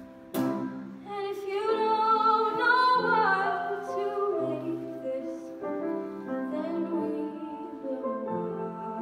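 High school show choir singing: after a sharp hit just after the start, a female soloist carries a melody with vibrato over the group's sustained chords, loudest about two to three seconds in.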